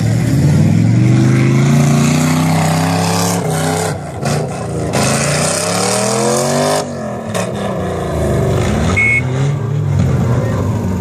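Four-wheel-drive engines revving hard in soft dune sand. The engine note climbs and falls several times, with one steep climb that drops off sharply partway through, as spinning wheels work a stuck vehicle up and free on the slope.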